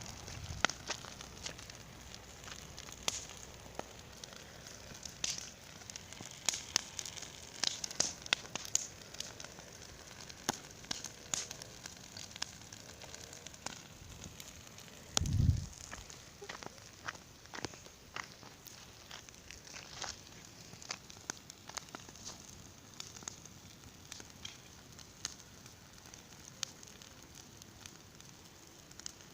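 Large bonfire crackling, with many sharp irregular pops, thickest in the first half. About halfway through there is one brief low thump, the loudest sound.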